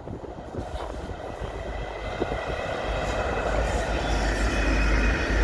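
Two EMD SD75I diesel locomotives leading a freight train as it approaches, their engine rumble growing steadily louder. The deep rumble strengthens about three seconds in.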